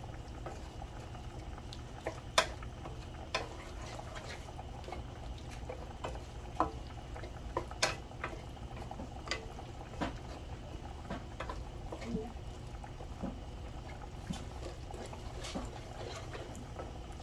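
Wooden spoon stirring mushrooms in gravy in a frying pan, scraping and clicking against the pan now and then, over a steady bubbling of food cooking on the stove.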